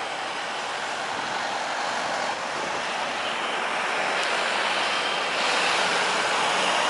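Jet engines of a Boeing 737-300 (CFM56-3 turbofans) running on the runway: a steady rushing noise that grows gradually louder as the aircraft rolls toward the microphone.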